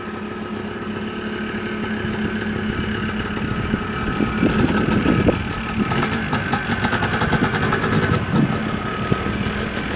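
Dirt-bike engines running as two motorcycles pull away, with the throttle blipped in a few louder revs about halfway through and again near the end.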